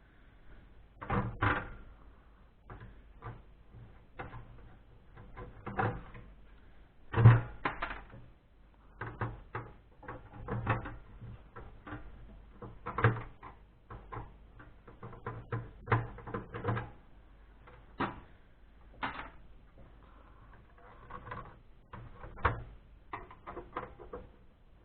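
Irregular clicks, knocks and rattles of metal and plastic parts being handled as the motherboard is worked out of an HP desktop PC case, with one louder knock about seven seconds in.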